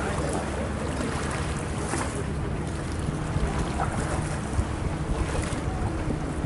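Boat's engine running steadily with a low hum, under the wash of lake water and wind buffeting the microphone.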